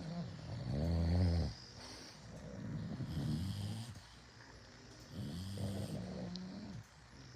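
Bulldog snoring in its sleep: three long, rattling snores about two seconds apart, the first the loudest.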